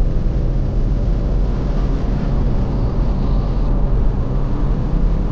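Steady road noise inside a moving car driving on a snowy road: a continuous low rumble of engine and tyres.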